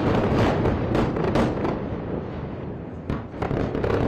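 A series of explosions with flying fragments: a rapid run of sharp cracks and bangs over a continuous rumble, easing off after about two seconds, then a fresh cluster of bangs about three seconds in.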